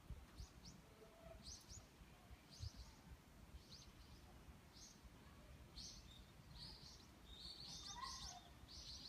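Small birds chirping faintly: short, high, quickly falling chirps, scattered at first and coming thick and fast near the end.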